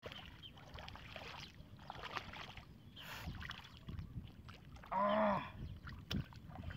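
Soft splashing and sloshing of hands working in shallow water over grass while grabbing at a fish. About five seconds in comes a brief, louder pitched cry that rises and falls.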